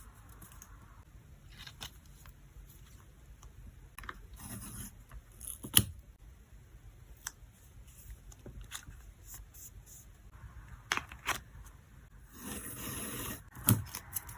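Photocards and plastic packing sleeves being handled: soft rustling and light taps, with a sharp click about six seconds in and a longer rustle past twelve seconds.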